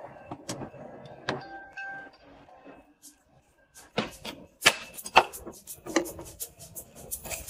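Longans poured from a small glass cup into the glass jar of a health kettle, clicking and clattering against the glass in a quick run of sharp clinks over the last few seconds. Before that, a few faint clicks and short tones.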